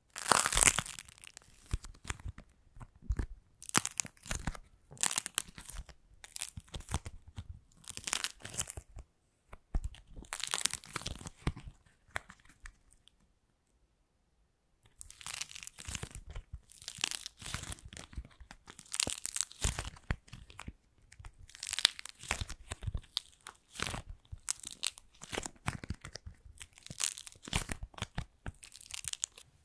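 Clay macaron being squeezed, crushed and torn apart by hand close to the microphone, giving a dense, crackling crunch in bursts. There is a pause of about two seconds midway. The sharpest cracks come right at the start, as the macaron first gives way.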